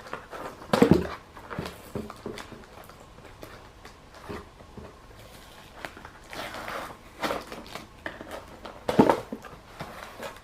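Cardboard figure box and plastic packaging being handled and opened by hand: irregular rustling and small knocks, with two louder thumps about a second in and near the end.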